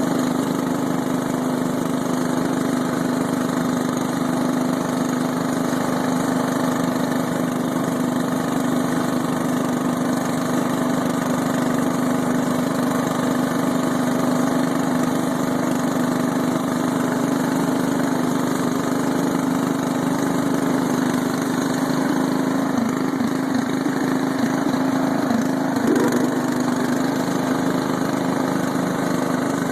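Scotts/John Deere S1742 lawn tractor's 17 hp Briggs & Stratton engine running at a steady speed. Its note wavers slightly near the end, with one short bump.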